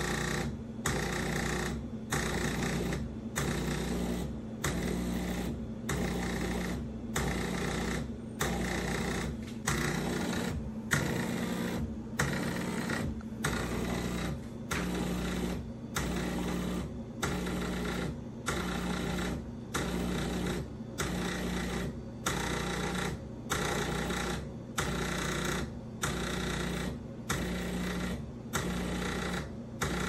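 Café Affetto automatic espresso machine running in even pulses a little over once a second, with a constant low hum underneath: the pump cycling in its rinsing mode, which the owner says it keeps getting stuck in.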